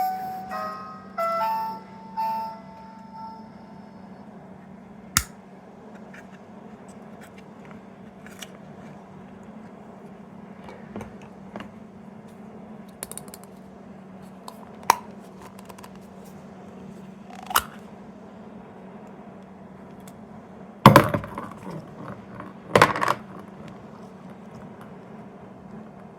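A short electronic chime melody from a small sound-making capsule toy fading out, then scattered plastic clicks and knocks as the toys are handled, with two louder bursts of knocking near the end over a steady low hum.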